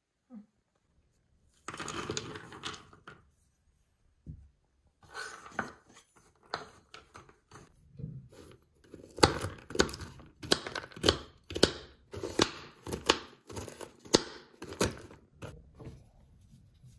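Pecans being crushed on a wooden cutting board: a run of sharp knocks and crunches that grows louder and steadier from about nine seconds in, roughly one and a half strikes a second.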